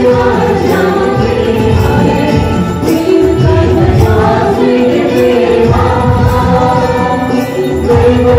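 Church choir singing a hymn, with jingling hand percussion keeping a steady beat of about two strokes a second.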